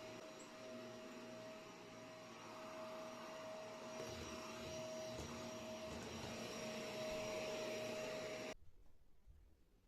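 Vacuum cleaner running with a steady hum, then switched off, cutting out suddenly near the end.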